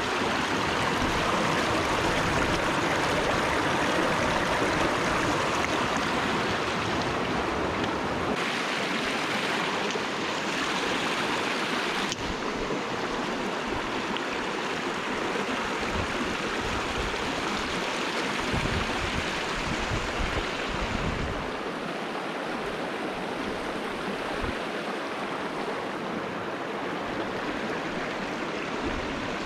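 A flowing stream rushing steadily, its sound shifting a little a few times.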